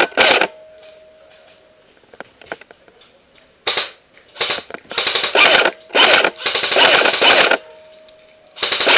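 Airsoft AK-74M replica firing bursts of full-auto, close to the gun-mounted microphone: a short burst right at the start, then a run of bursts from about four seconds in, the longest lasting about a second and a half.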